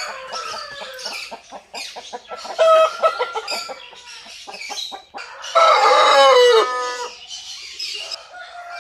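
Chickens clucking in short repeated calls, with a rooster's long crow about five and a half seconds in, the loudest sound.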